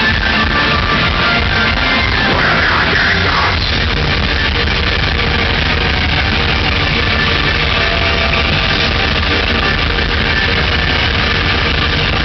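Folk metal band playing live: distorted guitars, keyboards and fast, dense drumming in a loud, muddy audience recording.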